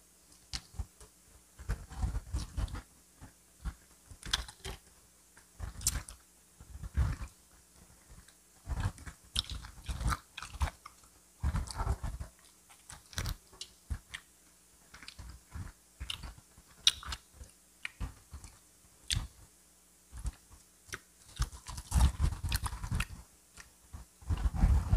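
Crunchy biting and chewing of crispy fried chicken: sharp crackles of the fried coating, coming in bursts with short pauses between them.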